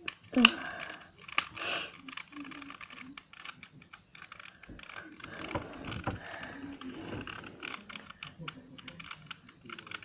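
Fingernails picking and peeling stickers off a plastic 2×2 Rubik's Cube: many small clicks and scratches, with a loud click about half a second in.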